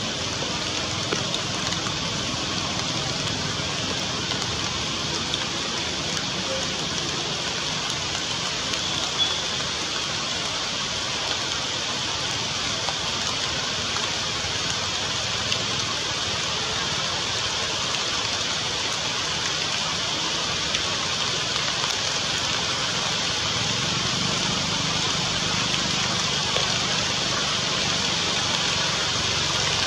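Steady rain falling through forest canopy, an even hiss with a few scattered louder drop ticks.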